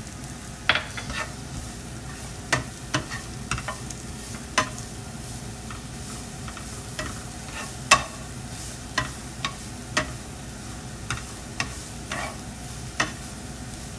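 Julienned carrots and leeks sizzling in a nonstick frying pan while a slotted spatula stirs them, knocking and scraping against the pan: a steady sizzle with irregular sharp taps, the loudest about eight seconds in.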